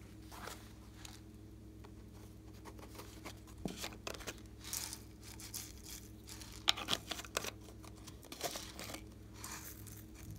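Small plastic shaker bottles of craft sprinkles being handled and shaken: irregular clicks and rattling rustles as tiny beads scatter out onto slime. A faint steady hum sits underneath.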